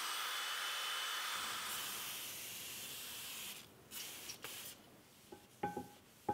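Rotary tool spinning a Scotch-Brite wheel against a steel drill press column, a steady high whine and hiss, giving way about two seconds in to the hiss of an aerosol spray. The spray stops about halfway, and a few light knocks and cloth rubbing follow as a rag wipes the column.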